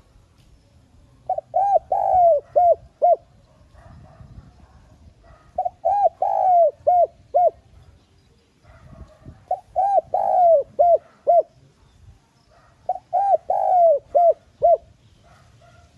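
Spotted dove cooing: four phrases spaced about four seconds apart, each a run of short coos with one longer drawn-out note in the middle.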